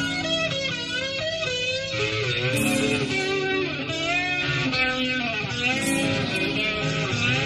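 Rock band recording in an instrumental passage: an electric guitar lead plays wavering, held notes over bass and a rhythm part.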